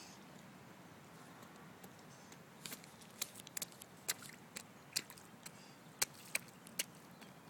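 Toddler's rubber rain boots stepping and splashing through shallow puddles on wet asphalt: a run of about a dozen small, sharp, uneven wet slaps starting a few seconds in.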